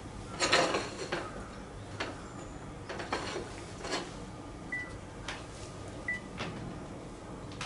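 Ceramic plates and bread being handled on a kitchen counter: a series of light knocks and rustles as plates are set down and salad leaves laid on sandwiches, the loudest knock about half a second in, with two short ringing clinks midway.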